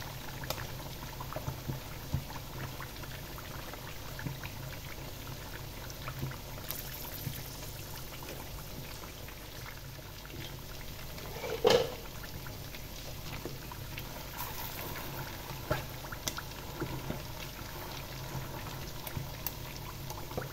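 Quail and potato sticks deep-frying in hot oil: steady sizzling and bubbling with many small crackles. A single brief thump a little past halfway.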